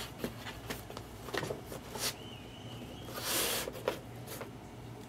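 Trading cards and their plastic holders being handled on a table: light scattered clicks and rustles, a brief thin high tone just after two seconds, and a louder half-second hiss of sliding or rustling just after three seconds.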